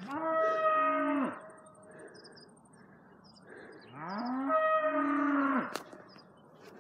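A cow mooing twice: two long, loud calls about four seconds apart, each rising in pitch, held, then dropping away at the end.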